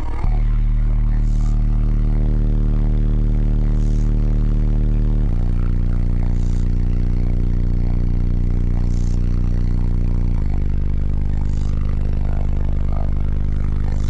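Three Crossfire 18-inch subwoofers on an American Bass 12K amplifier playing a bass demo at very high volume inside the truck's cabin. Long held bass notes, each about five seconds, step to a new pitch twice, with a faint sizzle about every two and a half seconds.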